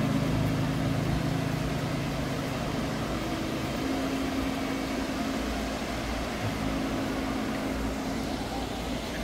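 A steady low mechanical hum with held low tones over a wash of noise. The lowest tone drops out about four seconds in.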